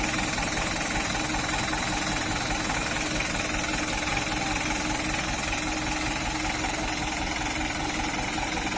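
Diesel engine of a Mitsubishi Ragasa (Colt Diesel) dump truck running steadily, with a fast, even pulsing throb.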